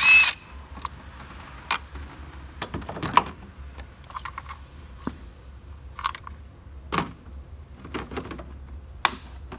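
A cordless ratchet spins a 10 mm ignition-coil bolt for a moment right at the start. Scattered plastic clicks and light knocks follow as the coil pack on the 2.7 V6's valve cover is unplugged and lifted out.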